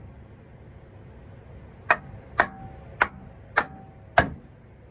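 Five hammer blows, evenly spaced about half a second apart, starting about two seconds in, each leaving a short ring.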